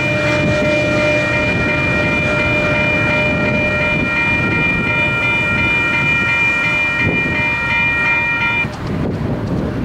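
Diesel locomotive air horn sounding one long, steady multi-note chord that cuts off near the end, over a steady rumbling hiss.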